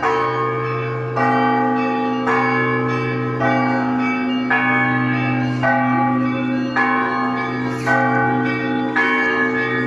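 Russian Orthodox church bells ringing: a deep bell keeps humming underneath while a set of smaller bells is struck together in a steady pattern about once a second, with lighter strokes in between.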